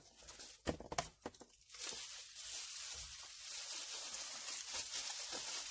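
Product packaging being handled during an unboxing: a few light clicks and knocks, then continuous crinkling and rustling from about two seconds in.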